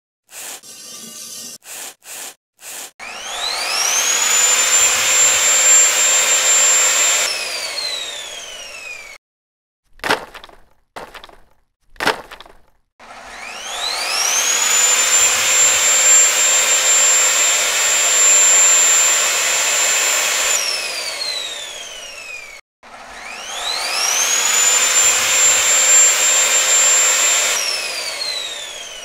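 Router mounted under a router table spinning up with a rising whine to a high steady pitch, running while it cuts a profile along a wooden strip, then winding down with a falling whine. This happens three times, with short knocks and clicks in the gaps between runs.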